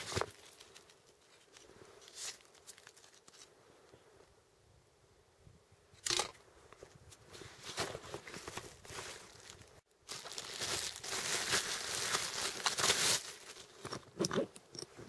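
A thin clear plastic bag crinkling and rustling as it is pulled off a green plastic ammunition box, with snow on both. Before this come quieter handling sounds and one sharp click. The crinkling is loudest for about three seconds past the middle, and a couple of sharp clicks follow near the end as the box is handled.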